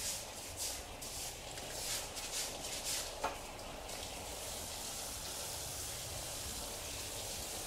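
Outdoor background of a high hiss, coming in uneven pulses about twice a second and then turning steady about four seconds in, with one short chirp about three seconds in.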